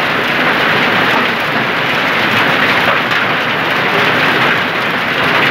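Heavy hail falling with rain: a dense, steady rush of countless small hailstone impacts on the street and the surfaces around it.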